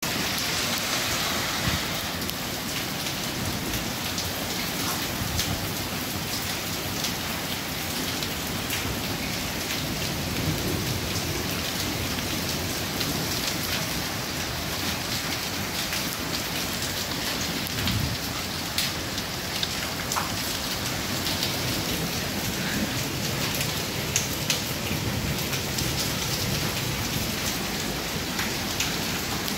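Heavy hail with rain pelting down on hard ground, fencing and bins: a steady dense hiss peppered with many small sharp ticks of hailstones striking.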